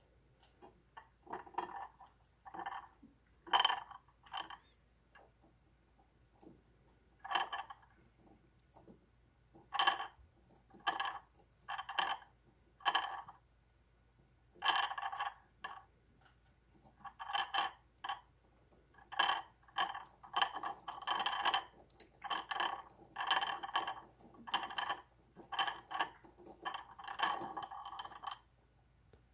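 Small magnets clinking and rattling against metal as they are moved by hand. The sound comes in about twenty short, irregular bursts.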